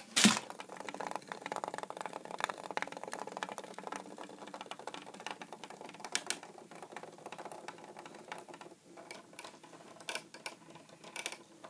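Hexbug Nano vibrating robot bugs skittering through plastic habitat tubes: a dense stream of rapid, rattly ticks, with a sharp knock at the very start.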